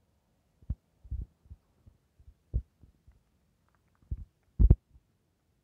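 Irregular soft low thumps and bumps, about a dozen. The loudest is a double thump near the end.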